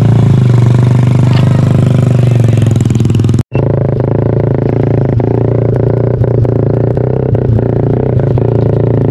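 A vehicle engine running steadily and loudly at close range, with rattling knocks over it. The sound drops out for an instant about three and a half seconds in, then the engine carries on.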